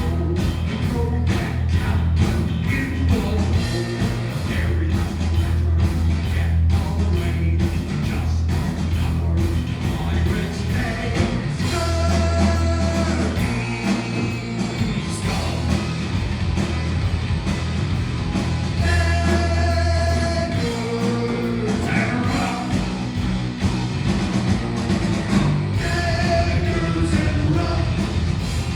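A heavy metal band playing live: distorted guitar, bass and drums with a steady beat, and sung vocal lines coming in and out over the second half.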